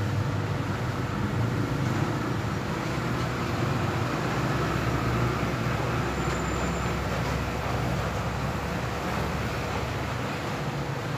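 A steady low rumbling hum, with no clear single events standing out.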